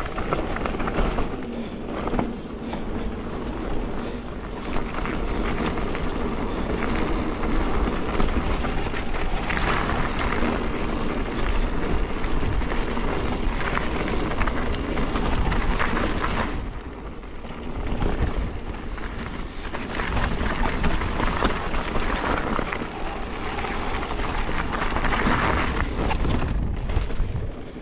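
Mountain bike ridden along a stony dirt trail: tyres crunching over stones and the bike rattling, with wind rumbling on the handlebar-mounted action camera's microphone. The noise eases off briefly about two-thirds of the way through.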